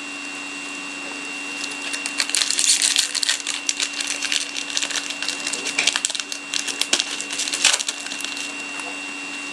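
Crackling, crinkling rustle of a trading card pack's wrapper and cards being handled, starting about a second and a half in, busiest around two to three seconds and again near the end. A steady low electrical hum with a faint high whine runs underneath.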